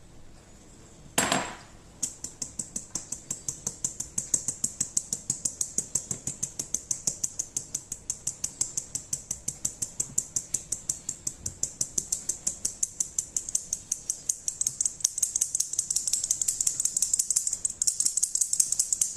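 A thump as flour is tipped into a fine-mesh stainless steel sieve, then the sieve being tapped steadily by hand over a steel mixing bowl to sift the flour, a long run of rapid, even, light metallic taps.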